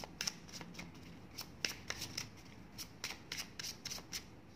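Paper divination word cards being handled: a dozen or so irregular small flicks and taps as cards are picked up, slid and turned over, stopping shortly before the end.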